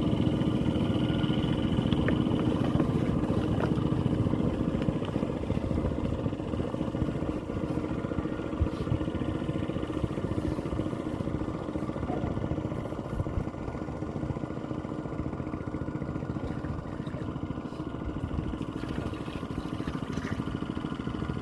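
A small engine running steadily, gradually getting quieter.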